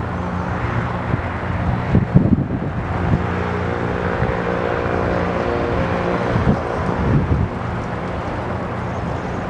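Goodyear blimp's engines and propellers droning steadily as it comes in to land with its handling lines down, with a few gusts of wind buffeting the microphone.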